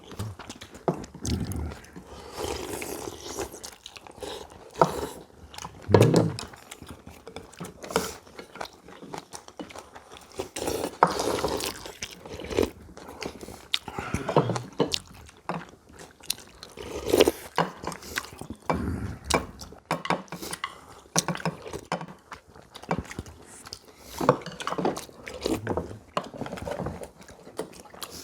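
People eating a meal: chewing and biting, with frequent short clicks of spoons and chopsticks against bowls and dishes.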